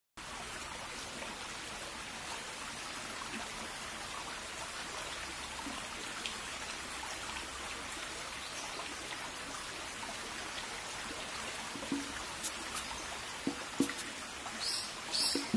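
Steady rain sound, an even hiss that starts suddenly out of silence. Near the end come a few sharp ticks and three short high-pitched notes.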